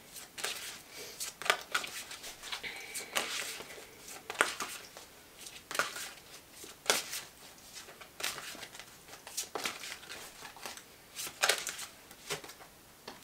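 Tarot cards being handled, shuffled and drawn: irregular soft snaps, flicks and rustles of card stock, about a dozen sharp clicks scattered unevenly.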